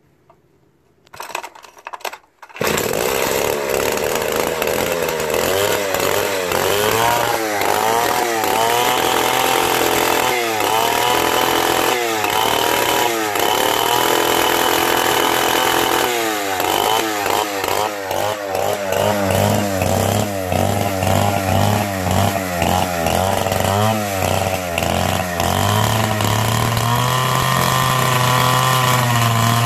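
Soviet Druzhba-4 single-cylinder two-stroke chainsaw started for the first time after long storage: a few short bursts as it is pulled over, then it catches about two and a half seconds in and keeps running. It is revved up and down again and again, with a long high rev near the end.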